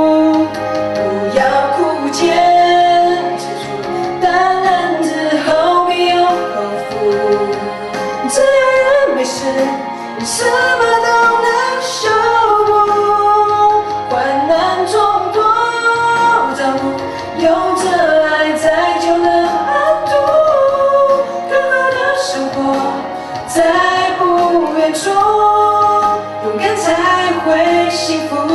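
A singer singing a Mandarin song into a microphone over instrumental accompaniment, amplified through the hall's sound system.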